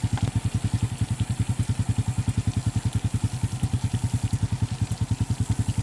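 Engine running steadily with an even, fast low thumping of about a dozen beats a second.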